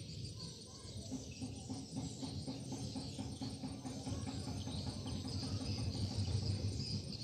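Insects chirring steadily in the background, over a low rumble. A faint steady hum runs through the middle of it.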